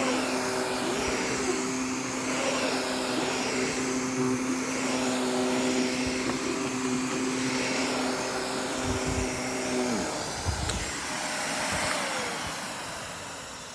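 Vacuum cleaner running on a rug, a steady motor hum under a hiss that swells and fades in a regular rhythm. About ten seconds in the motor is switched off and winds down, its pitch falling as the sound dies away.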